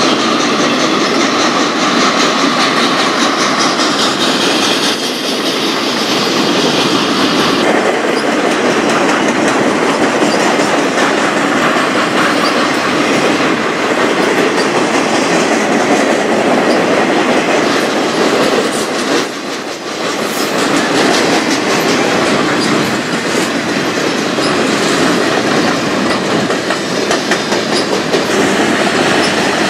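Freight train cars rolling past close by: a steady loud rumble of steel wheels on rail with clickety-clack over the rail joints. The level dips briefly about two-thirds of the way through.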